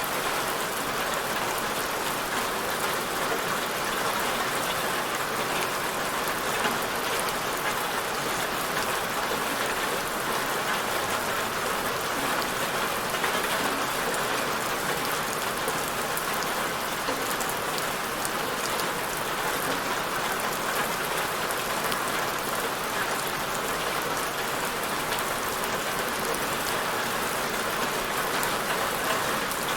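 Steady rainfall hissing evenly, with fine patter of drops on a surface.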